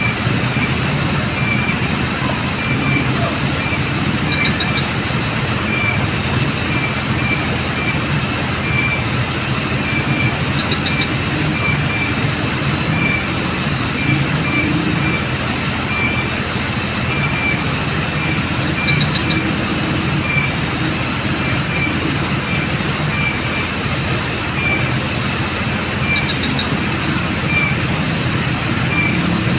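Insects chirping in a steady, repeating rhythm over a constant hiss, with a short triple click every several seconds.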